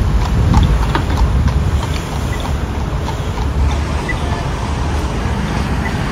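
A horse's hooves clip-clopping on the road, fading out after about three and a half seconds. Under them is steady street traffic and a low rumble of wind on the microphone.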